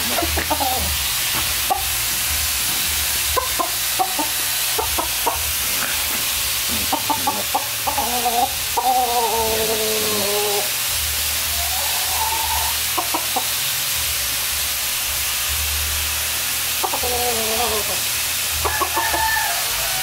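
A rooster clucking and calling in short bursts again and again, with a longer run of calls from about seven to ten seconds in, over a steady hiss.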